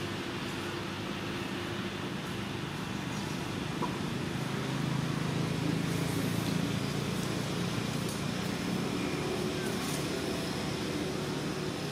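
Steady low motor hum under a constant hiss, swelling slightly near the middle, as from vehicle traffic in the background.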